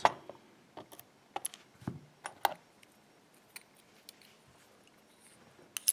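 Light, scattered clicks and taps of small lock pins and cylinder parts being handled and set down in a plastic pin tray. Several come in the first couple of seconds, then a quiet stretch, then a sharper pair of clicks near the end.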